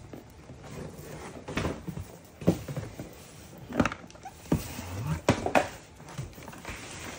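Cardboard boxes being handled: a string of sharp knocks and thumps with scraping and rustling between them, as packaged toy boxes are set down and rummaged out of a large cardboard shipping box.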